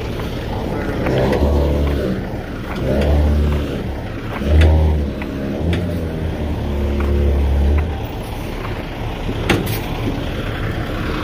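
Semi-truck diesel engine revving up and easing off in several surges while backing a trailer, with a few light clicks and one sharp brief sound about nine and a half seconds in.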